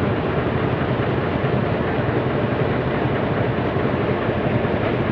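Heavy diesel engine running steadily at a constant speed, with an even low drone.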